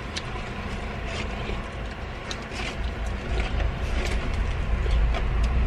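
Low steady vehicle rumble heard from inside a car, growing a little louder about three seconds in, with small clicks and crackles of food being handled and chewed out of cardboard boxes.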